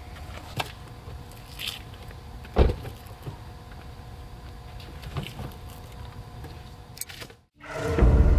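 A car door shutting with a heavy thump about two and a half seconds in, among a few lighter knocks, over a steady low hum. The sound drops out briefly near the end and loud music comes in.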